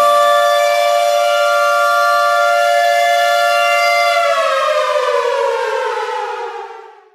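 Air raid siren holding a steady two-note wail, then winding down about four seconds in, its pitch falling as it fades out near the end.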